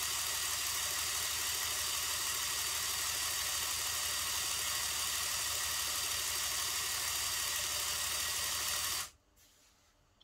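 Small electric air compressor running with a steady hum and hiss while inflating a balloon through a tube; it cuts off abruptly about nine seconds in as its power is switched off. A faint click follows near the end.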